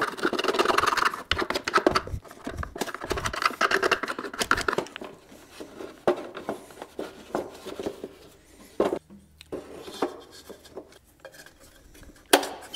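Sheet-metal heater box and new heater core being handled and fitted together by hand: rustling, scraping and light metal clicks and clunks. It is busiest in the first few seconds, then thins to scattered clicks with a couple of sharper knocks later.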